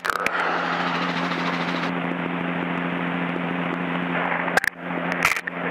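Helicopter engine and rotor noise heard through the cockpit headset intercom: a steady hum with hiss, cutting out briefly twice near the end.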